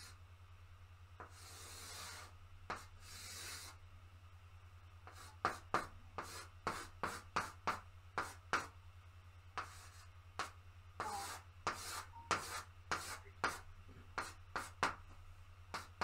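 Chalk drawing on a blackboard: two longer scraping strokes in the first few seconds, then from about five seconds in a quick run of short chalk strokes and taps. A low steady hum runs underneath.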